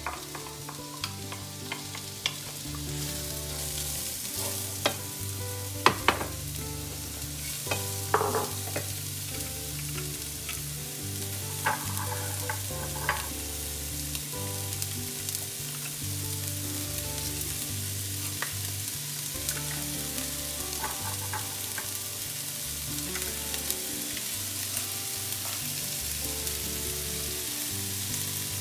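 Chopped red onion sizzling in oil in a non-stick frying pan, softening toward translucent, with scattered clicks and knocks of utensils against the pan, the loudest a few seconds in.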